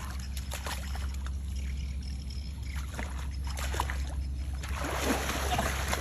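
Water splashing and trickling, with scattered small knocks, over a steady low hum.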